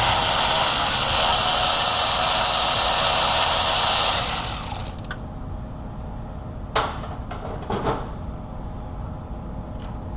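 Power tool, such as a power ratchet, running steadily for about four seconds and then stopping, followed by a couple of light metallic clicks.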